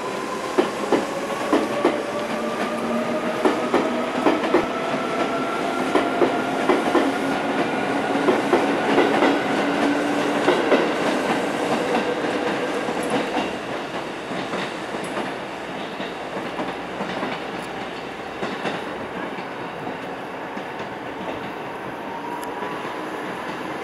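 Seibu 3000-series electric commuter train pulling away from a station: its motor whine rises steadily in pitch as it gathers speed, with wheels clicking over rail joints. The clicks thin out and the sound eases after about twelve seconds.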